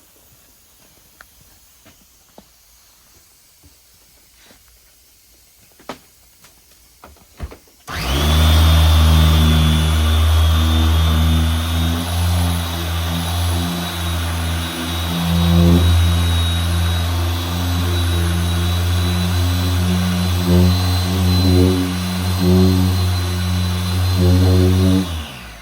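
Dual-action car polisher starts about 8 seconds in and runs on the paint for a paint-correction pass: a steady motor hum with a high whine, its loudness shifting a little as it is worked, and it stops just before the end. Before it starts there are only a few faint clicks.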